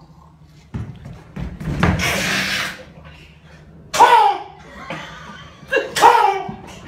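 A man imitating dinosaur calls with his voice: a long breathy hiss about two seconds in, then two short screeching cries that fall in pitch, about four and six seconds in.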